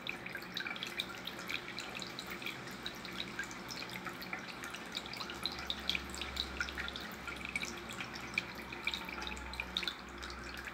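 Tabletop Buddha statue water fountain: water trickling and dripping steadily into its basin, with many small irregular drips and splashes.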